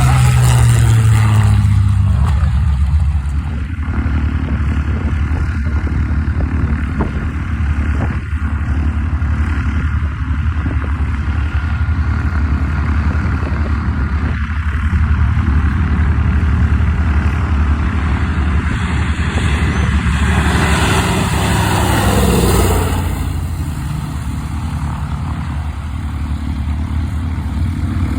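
Piston-engined WWII warbird fighter running loud and steady as it flies past. A falling pitch sweep about two-thirds of the way through marks its passing.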